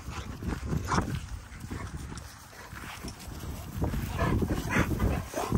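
American Bully dogs running and playing in grass, giving a few short vocal sounds, about a second in and again near the end, over a steady low rumble.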